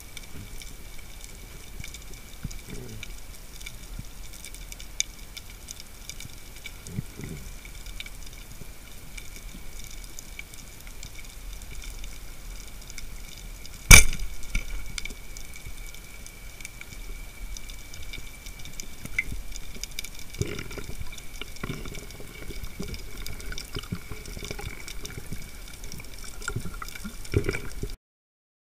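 Underwater ambience with a faint steady crackle and hiss. About halfway through comes a single sharp, loud snap as a rubber-band speargun is fired. Low rustling of water movement follows.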